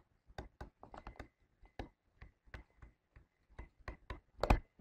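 Stylus tapping and clicking against a drawing tablet while handwriting. The light, irregular clicks come a few a second, with a louder pair near the end.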